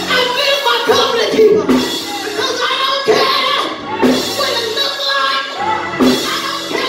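A woman's voice singing and calling out forcefully through a handheld microphone, with the pitch gliding up and down, over sustained instrumental backing music.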